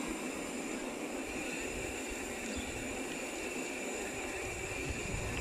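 Steady rush of wind and tyre noise from a mountain bike rolling along asphalt, picked up by a phone mounted on the handlebars.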